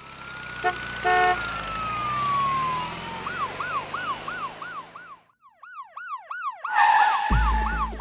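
Ambulance siren sound effect: a long wail falling in pitch, then a fast repeating yelp of about two rise-and-fall sweeps a second. A few short tones sound about a second in, and a loud rush of noise with a low thud comes near the end.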